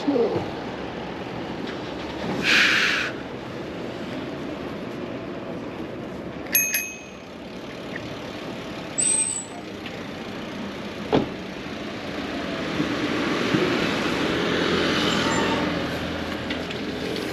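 City bicycle being ridden along a street: steady wind and road noise with rattles from the bike, a short hiss about two and a half seconds in, a metallic ting about six and a half seconds in, and a sharp knock near eleven seconds.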